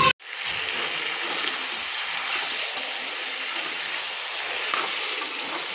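Chicken pieces frying in hot oil in a kadai: a steady sizzling hiss, broken for a moment just after the start, as a steel spatula stirs freshly added ginger-garlic paste through the meat, with a couple of light scrapes against the pan.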